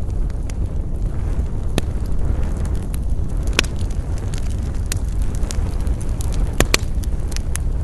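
Wood fire crackling: scattered sharp pops, with a close pair of the loudest about two-thirds of the way in, over a steady low rumble.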